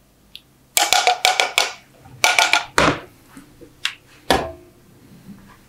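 A spoon knocking and scraping against a saucepan while chicken and mushroom pieces are scooped out: a quick run of taps about a second in, another cluster around two to three seconds, and a couple of single knocks near four seconds, some with a short metallic ring.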